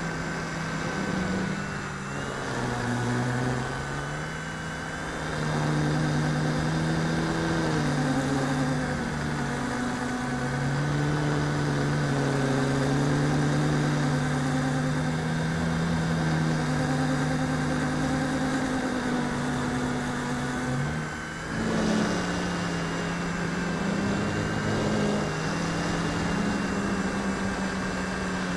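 RC Logger Xtreme quadcopter's motors and propellers whirring, picked up by the onboard camera, the pitch gliding up and down with the throttle; the sound drops briefly about 21 seconds in, then comes back louder. It is flying on small 138 mm props, three of them cracked, with one motor knocked out of line.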